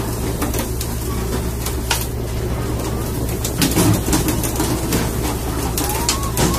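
Fishing boat's engine droning steadily, with many sharp knocks and clicks over it and a couple of short squeaky chirps.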